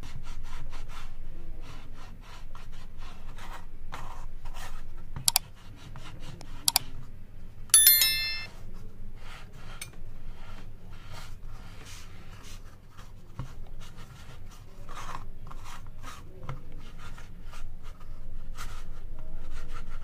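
Electric clothes iron sliding back and forth over photo paper on a copper-clad PCB for toner transfer, a run of short rubbing, scraping strokes. About a third of the way in come two sharp clicks, then a brief metallic ring, the loudest sound.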